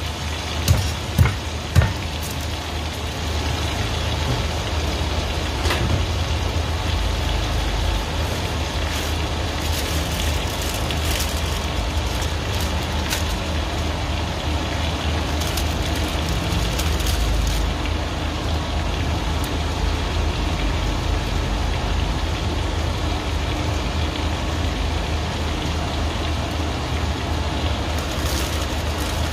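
Sirloin steak sizzling steadily in a hot frying pan over a low hum, with a few sharp knocks in the first two seconds.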